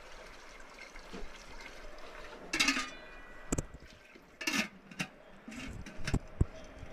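River water running steadily, with a few sharp knocks and short louder bursts over it, the loudest about two and a half seconds in.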